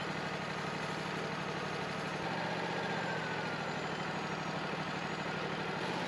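Wood-Mizer LT40 portable sawmill's engine running steadily at idle, with a slight shift in its low hum about two seconds in.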